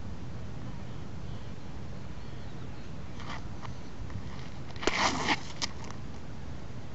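Steady wind rumble on the microphone. About five seconds in, a short zipping whoosh with a few sharp clicks as a long surfcasting rod fitted with a Shimano Torium reel is swung forward in a cast.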